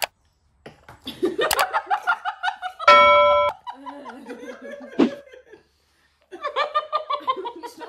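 People laughing and giggling in bursts. About three seconds in, a loud, steady electronic tone cuts across it for about half a second.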